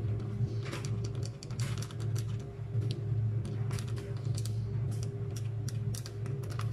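Plain flour poured and shaken from its package into a stainless steel mixing bowl on a kitchen scale: soft hissing pours among many quick light ticks and rustles, over a steady low hum.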